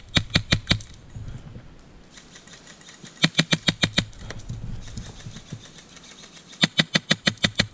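Airsoft rifle firing on full auto in three short bursts, about ten rapid shots a second: one right at the start, one about three seconds in and one near the end.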